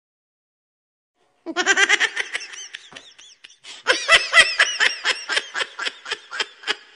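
High-pitched laughter: quick, repeated 'ha' pulses that start about a second and a half in after silence, thin out around three seconds, and come back louder about four seconds in.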